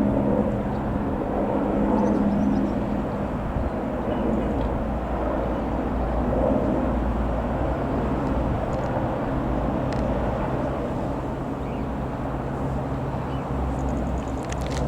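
Eurocopter AS355 twin-engined helicopter running, a steady turbine and rotor hum with noise underneath; a higher tone fades out about three seconds in while the lower hum carries on.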